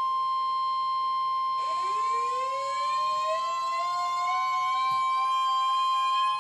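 NOAA Weather Radio warning alarm tone, one steady high-pitched tone held throughout, marking the start of a new alert. About a second and a half in, a second, rich-toned sound joins and slowly slides upward in pitch like a siren winding up.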